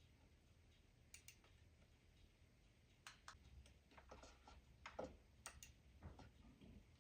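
Faint scattered clicks from a computer's mouse and keyboard being worked by hand: two quick clicks about a second in, then a run of clicks and light knocks from about three seconds in until shortly before the end.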